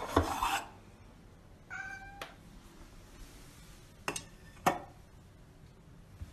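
A cat meows once about two seconds in, after a loud, harsh burst at the very start. Two sharp clacks follow a little past the midpoint as a stainless steel food bowl is set down.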